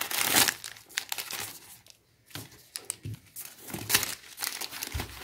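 Clear plastic packaging crinkling and rustling in irregular bursts as hands handle it, loudest at the start, with a short quiet gap about two seconds in.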